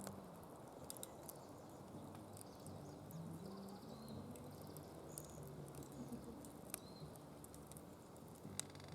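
Firewood crackling in a fire pit, with scattered sharp pops; the loudest pop comes near the end.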